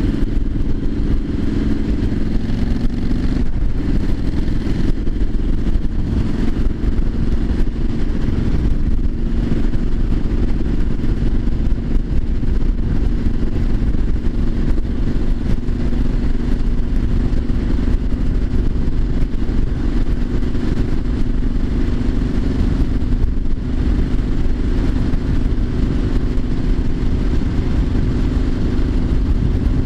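Triumph Street Scrambler 900's parallel-twin engine running at a steady cruise, its pitch shifting slightly about three seconds in, with wind rumble on the microphone.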